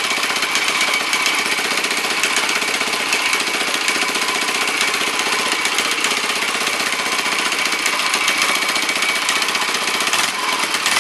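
Ducati Cucciolo four-stroke single-cylinder engine running steadily on the bench, with a rapid, even beat.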